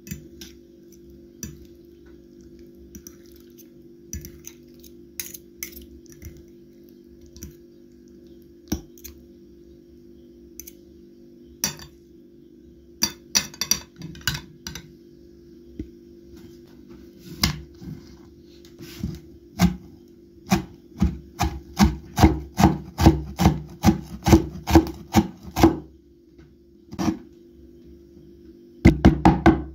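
Knife chopping fresh dill on a wooden cutting board: a few scattered taps at first, then a quick, steady run of chops in the second half, over a low steady hum.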